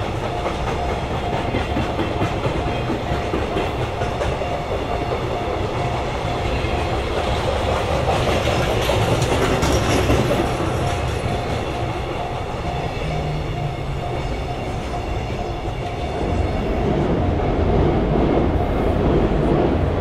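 Empty KoKi 50000 container flat wagons rumbling and clattering past over the rail joints of a level crossing. Through it the Japanese level-crossing alarm keeps ringing in a steady repeating tone.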